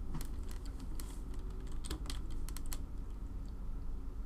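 Typing on a computer keyboard: a quick run of key clicks over the first three seconds, then it stops, over a steady low hum.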